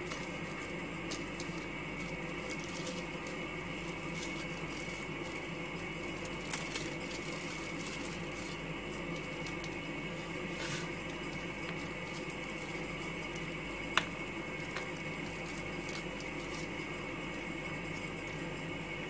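Handheld cordless sewing machine running with a steady motor hum, broken by a few sharp clicks; the loudest click comes about fourteen seconds in.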